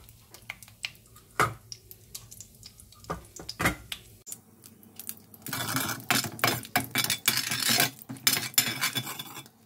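Metal utensil clinking and scraping against a stainless steel pan of hot ghee and whole spices. Scattered sharp clicks at first, then a denser run of clatter from about halfway through.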